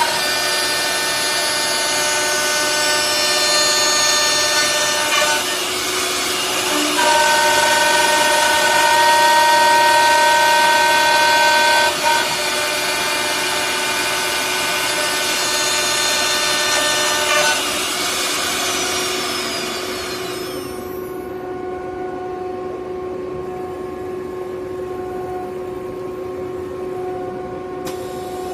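High-speed router spindles of a CNC door lock-and-hinge mortising machine whining as they cut into wood, the whine shifting pitch a few seconds in. About two-thirds of the way through the cutting noise fades away and only a steady, lower hum is left.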